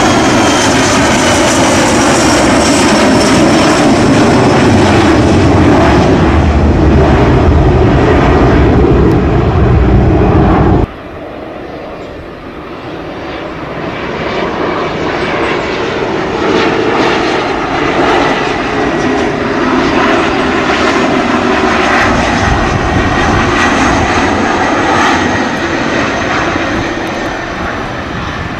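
Jet engines of landing aircraft: a loud roar with a high whine sliding slowly down, cut off abruptly about eleven seconds in. A quieter jet whine then takes over and grows louder over the next several seconds as another jet comes in.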